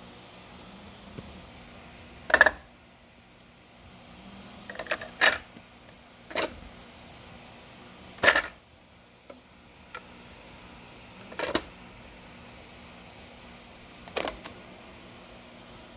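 A string of sharp plastic clicks and clunks, about six spread out with quiet gaps between, from a cassette tape and a Montgomery Ward Airline boombox's cassette deck and controls being handled. A faint steady hum runs underneath.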